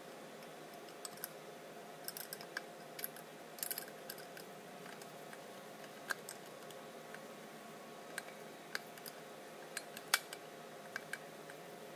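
Ratcheting box-end wrench clicking and metal tools clinking as a nut is worked off a horn-mount bolt held with a screwdriver: irregular sharp clicks, the loudest about ten seconds in, over a faint steady hum.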